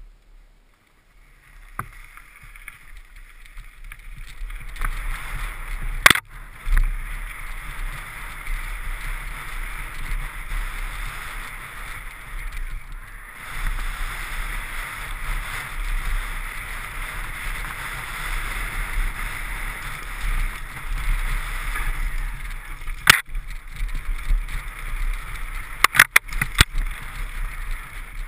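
Riding a downhill mountain bike over snow-covered dirt and grass, heard through a GoPro housing: a steady rush of wind and tyre noise over a low buffeting rumble, building over the first few seconds as the bike gets going. Sharp knocks from the bike cut through about six seconds in and in a quick cluster near the end.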